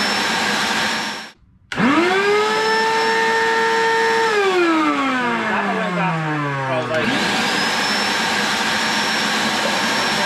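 Vacuum cleaner motor running with a steady high whine. After a short break, the motor is switched on and spins up with a rising whine, runs briefly, then is switched off and winds down in falling pitch. About seven seconds in it cuts abruptly back to steady running. These are spliced takes of the same machine, before and after its turbine and filters were cleaned to cure the noise.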